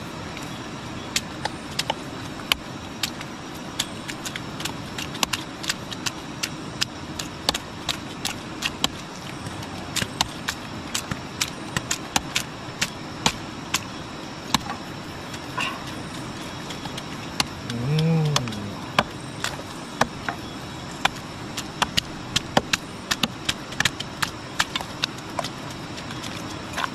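Many irregular sharp clicks and knocks, several a second at times, over a steady rushing background noise. About eighteen seconds in there is a brief voice sound that rises and falls.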